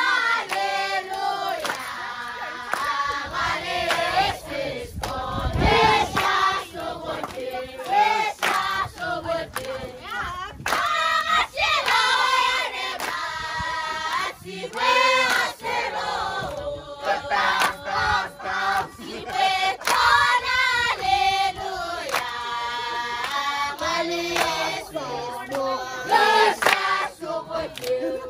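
A group of voices singing or chanting together, with occasional sharp claps among the singing.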